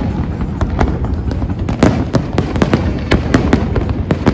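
Fireworks display: many sharp bangs and crackles in quick, irregular succession over a continuous low din of shells bursting.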